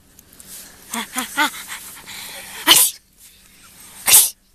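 A person imitating sneezes: three short rising 'ah-ah-ah' breaths build up, then a loud sneeze, and another sneeze follows about a second and a half later.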